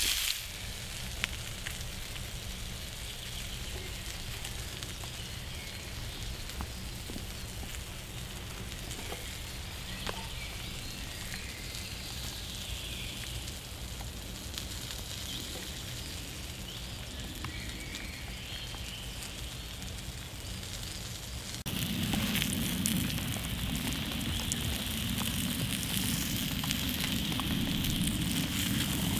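Small wood fire burning in a folding camp stove with scattered crackles, under steady rain. About two-thirds of the way through, the sound jumps louder and closer, to the fire crackling and the pan sizzling.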